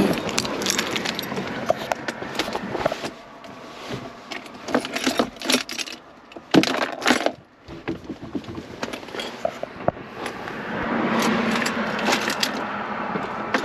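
Irregular clicks and metallic jingling.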